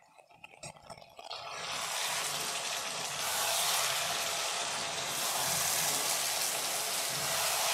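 Marinated boal catfish pieces frying in hot mustard oil in a kadai, sizzling. The sizzle begins as sparse crackles and builds to a steady, dense hiss about two seconds in.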